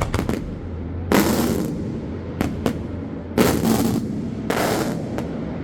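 Fireworks exploding in quick succession: a cluster of sharp bangs at the start, then crackling blasts about half a second long, with single sharp cracks between them, roughly one every second.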